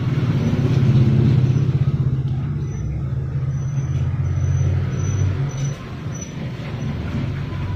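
A vehicle engine running steadily with a low, pulsing hum, its pitch dropping lower about three seconds in.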